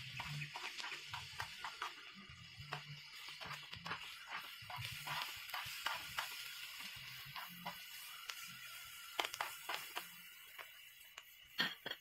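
Sliced red onions sizzling on a hot griddle pan, with metal tongs clicking and scraping against the pan as they are turned, and a louder clack near the end.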